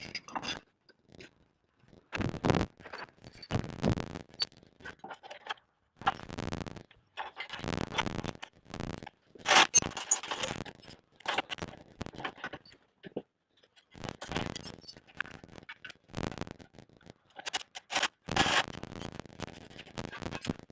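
Scraping and clattering handling noises in irregular bursts, broken by short silent gaps.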